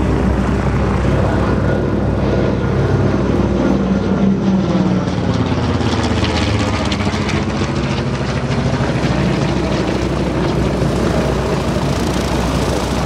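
Single-engine WWII propeller warplane flying low overhead, its engine droning steadily. It passes directly overhead about halfway through, and the sound sweeps as it goes by and heads away.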